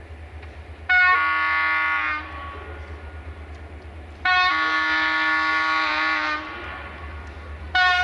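Diesel locomotive's multi-tone air horn sounding from an approaching train: a blast of about a second, then a longer one of about two seconds, with a third starting right at the end.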